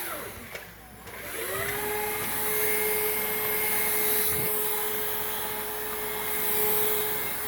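Hoover React cordless stick vacuum's motor winding down briefly, then spinning back up with a rising whine and running steadily at full speed.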